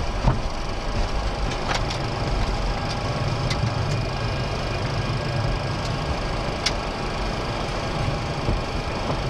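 Steady flight-deck noise of a Boeing 737-400 taxiing with its CFM56-3 engines at idle, broken by a few sharp clicks and knocks at irregular moments.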